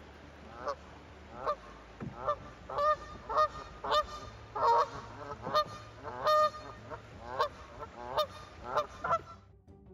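Canada geese honking, a run of separate calls that come quicker and louder from about three seconds in and stop shortly before the end.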